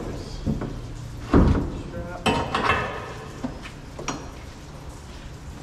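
Knocks and clunks of a white liquid deicing tank and its tie-down strap being worked into place on a stainless steel tray. The loudest is a heavy thump about a second and a half in, followed by a short clatter and a few lighter clicks.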